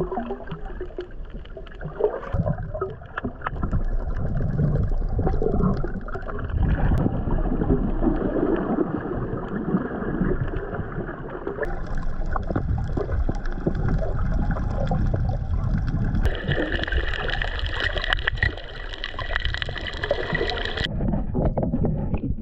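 Muffled water noise heard underwater: an uneven rushing and sloshing, with a few sharp clicks.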